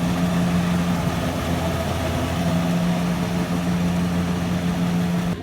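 An engine running steadily at an even speed, a low hum with a rough noise over it, cut off abruptly at the very end.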